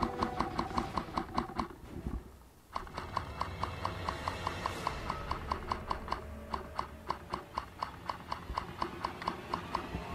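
Background music with a fast, even ticking beat, about six ticks a second, over sustained tones; it dips briefly about two seconds in.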